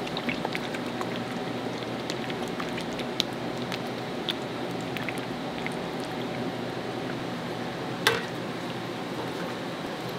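Cooking sounds in a restaurant kitchen: a steady wet, liquid sound with scattered small clicks, and one sharp knock about eight seconds in.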